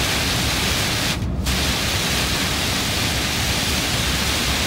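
Steady rushing noise inside a moving truck's cab in heavy rain: rain on the cab and windscreen with tyres on the wet expressway, over a low rumble. The hiss briefly drops away about a second in.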